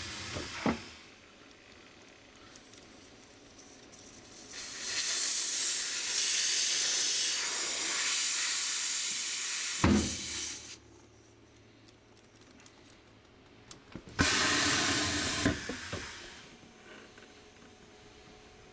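Compressed air hissing in two bursts during a tyre change: a long one of about six seconds, then a shorter one of about two seconds, with a sharp knock as the first ends.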